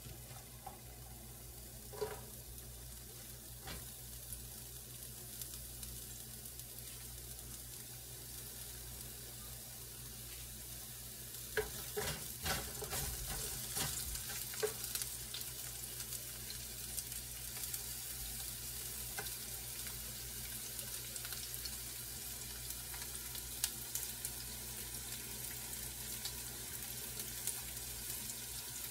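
Sliced onions sizzling in hot oil in a nonstick wok, with a wooden spatula scraping and tapping the pan as they are stirred. The sizzle grows louder about eleven seconds in.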